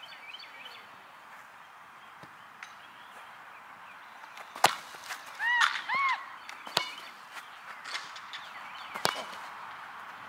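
Open-air field ambience with a steady hiss, broken by three sharp knocks, the first the loudest. Between the first two knocks, a bird gives two short rising-and-falling chirps.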